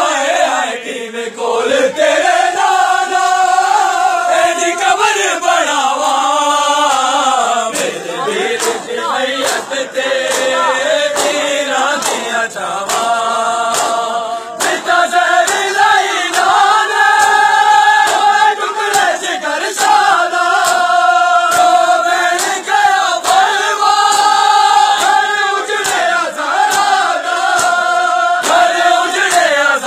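A crowd of men chanting a Punjabi noha in unison, long drawn-out lines rising and falling in phrases of a few seconds each. Scattered sharp slaps sound through the chanting.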